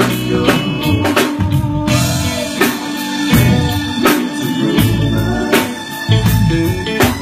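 Live band playing: a drum kit keeps a steady beat with cymbal hits about twice a second over a moving bass line.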